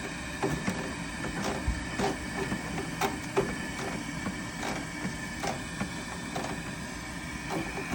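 Irregular light clicks and clinks of a stainless steel braided hose fitting being threaded and snugged onto a tankless water heater's service valve.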